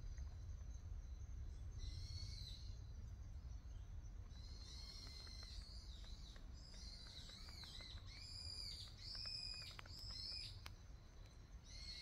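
Wild songbird calling faintly, a series of short arched chirps, with a quicker run of four calls about eight seconds in.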